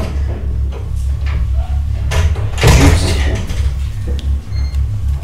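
A sliding door scraping and rattling as it is pulled by its handle, loudest about two to three seconds in, over a low steady drone.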